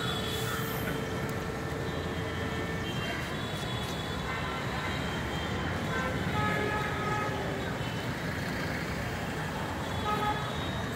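Busy street traffic noise, a steady rumble with short, faint tones now and then that may be distant horns.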